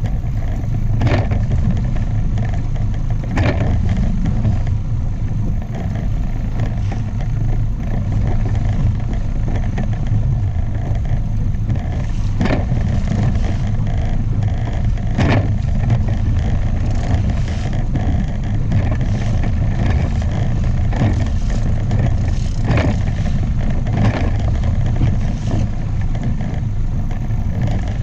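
Outboard motor running steadily as the inflatable boat moves through chop, with water slapping and splashing against the hull every few seconds.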